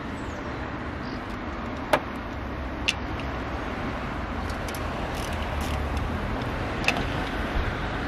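Steady background rumble with a few sharp metallic clicks, about two, three and seven seconds in, from hand tools working on a Tofaş Doğan SLX carburettor and its hose fittings as they are unfastened.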